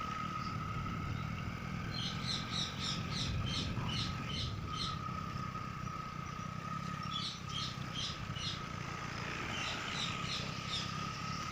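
A Hero motorcycle's engine running steadily on the move, with birds chirping in quick runs of short, high calls three times over it.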